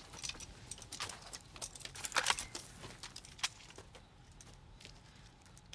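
Short-handled shovel digging into soil: irregular crunches and scrapes of the blade in dirt, busiest in the first three seconds and thinning out after about four seconds.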